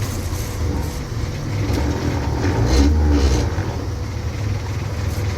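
Detroit Diesel two-stroke engine of a 1958 GMC PD-4104 Greyhound bus running, with a low steady drone that grows louder for about a second midway through.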